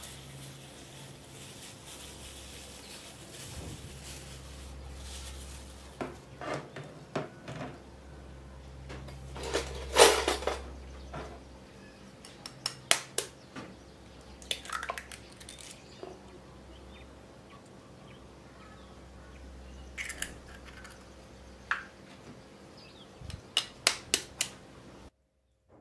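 A metal spoon tapping eggshells to crack eggs over a plastic bowl: a series of sharp taps and clicks, the loudest about ten seconds in and a quick run of taps near the end, over a low steady hum.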